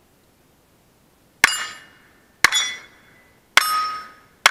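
Four revolver shots about a second apart at steel plate targets, each shot followed closely by the ringing clang of a hit steel plate.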